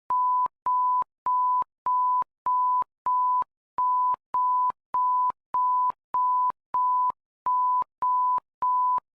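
Emergency alert system signal closing the alert test: a single steady electronic beep tone, repeated about every 0.6 s in runs of six with a short pause between runs.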